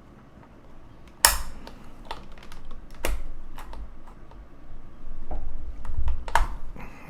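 Scattered plastic clicks and clacks of a mechanical keyboard's keys and keycaps being handled, irregular rather than a typing rhythm, with the sharpest clack about a second in and a few dull thuds a little after the middle.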